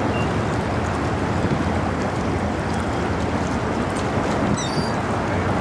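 Steady low rumble and water wash of the Great Lakes self-unloading freighter Whitefish Bay passing close by. A few short high chirps come about four and a half seconds in.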